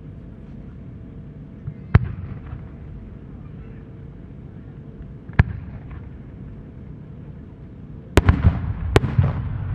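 Japanese aerial firework shells going off: single sharp bangs about two and five seconds in, then two louder bangs a second apart near the end, followed by rolling echoes.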